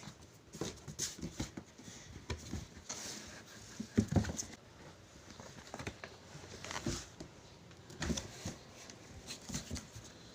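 Irregular handling noise of a motorcycle helmet being unboxed: rustling and crinkling of its wrapping, with scattered knocks and taps from the box and helmet, a few louder ones about four, seven and eight seconds in.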